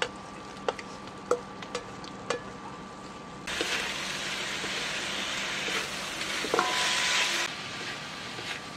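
Fried tofu cubes tipped into a hot wok of shrimp with a few sharp knocks, then loud sizzling in oil as a spatula stirs the shrimp and tofu together; the sizzle drops back near the end.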